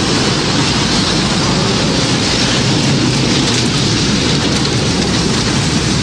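Tornado storm sound effect: a steady, dense roar of strong wind and heavy rain, with no rise or break.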